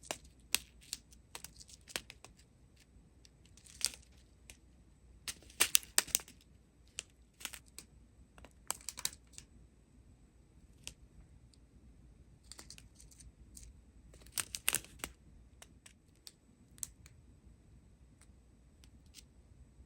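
Plastic packaging being handled: short crinkles and crackles in scattered clusters, loudest a little under 4 seconds in, around 6 seconds and around 15 seconds in.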